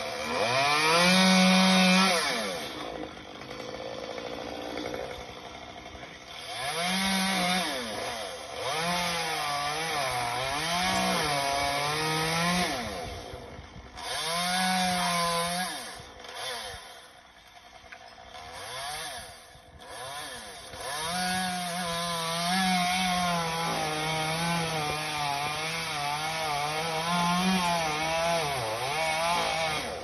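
Chainsaw cutting wood, its engine pitch rising and sagging in repeated bursts as it revs and bogs under load, with a quieter lull about halfway through and a long continuous cut over the last third.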